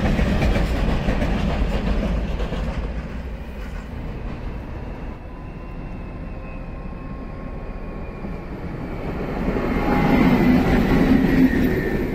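A long freight train of hopper wagons rolls past with its wheels clattering over the rails, fading over the first few seconds. After a quieter stretch, the sound swells again near the end: a class 754 'Brejlovec' diesel locomotive's engine working as it shunts.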